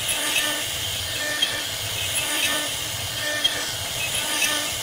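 CNC router carving a wooden door panel: a steady hiss from the spindle and small end mill cutting the wood, with short recurring squeaky tones and a few sharp ticks about once a second.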